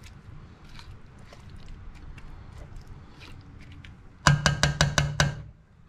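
A gas stove burner's igniter clicking rapidly, about seven sharp clicks in just over a second near the end, as the burner is lit to bring the pot to the boil. Before it there is a low hum with a few faint knocks.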